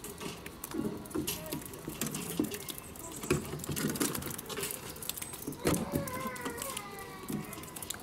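A flock of Humboldt penguins shuffling and jostling on concrete, making a steady patter of many quick, light taps and clicks.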